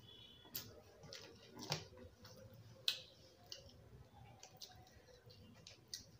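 Faint eating sounds from a mouthful of jalebi: scattered wet chewing and mouth clicks, the sharpest click about three seconds in.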